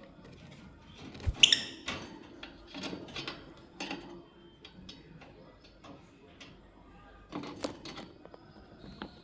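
Lovebirds pecking and cracking corn, making irregular sharp clicks and knocks, with a louder clatter about a second and a half in and another cluster near the end.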